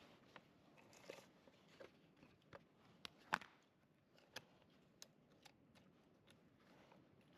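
Faint, scattered clicks and taps of small hard objects being handled, with one sharper clack a little over three seconds in.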